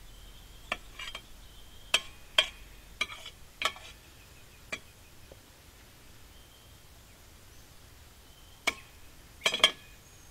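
Metal slotted spoon clinking against a stainless steel saucepan and plate as cooked pasta shells are scooped out and served. It is a run of sharp clinks in the first five seconds, then a few more near the end.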